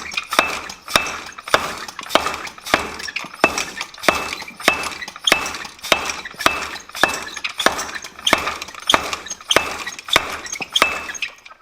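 Treadle hammer repeatedly striking a large bent steel bar to straighten it: a steady run of blows a little under two a second, each with a short metallic ring.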